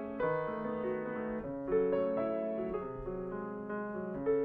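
Grand piano played solo in a classical piece, with several sustained notes and chords sounding together as new notes are struck.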